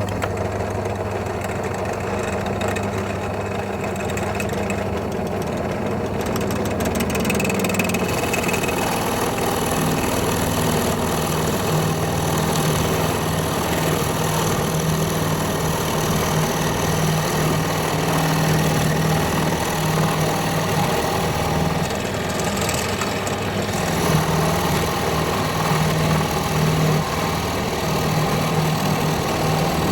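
Power drill motor starting abruptly and running steadily under load as a 19 mm spade bit bores a hole through rough pallet wood.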